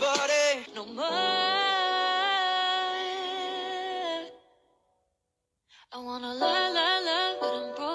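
A singing voice: a short phrase, then one long held note with vibrato that fades out about four seconds in. After a second and a half of silence, another sung melody begins.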